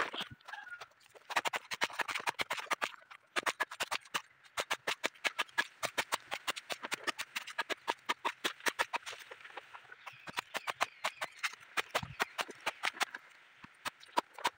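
A machete chopping banana stem into slices against a wooden chopping block: rapid, sharp strokes, about five a second, in runs broken by short pauses.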